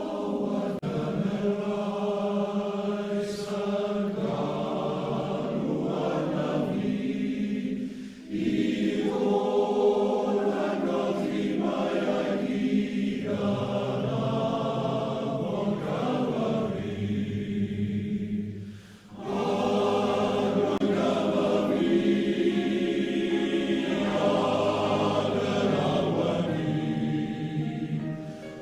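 Male voice choir singing in harmony, sustained chords in long phrases with short breaks about eight and nineteen seconds in; a low bass line comes in under the harmony partway through.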